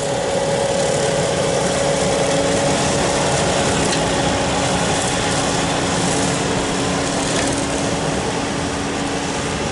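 Bobcat tracked skid steer with a hydraulic brush cutter mowing tall weeds and grass, its engine and cutter running steadily with a constant hum.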